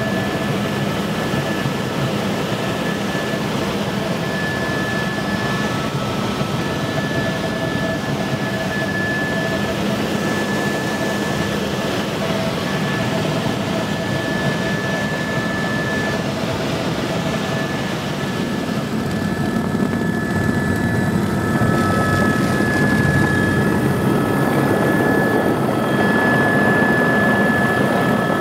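Helicopter cabin noise in flight: a steady drone of the rotor and engine with a constant high whine. It grows louder about two-thirds of the way through.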